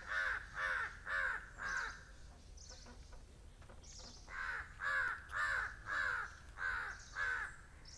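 A crow cawing in two runs of rapid caws about half a second apart, four then six, with a pause of about two seconds between them.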